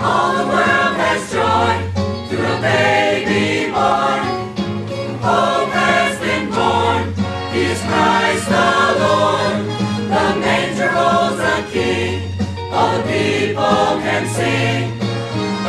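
Church choir singing a Christmas carol medley over a steady low accompaniment.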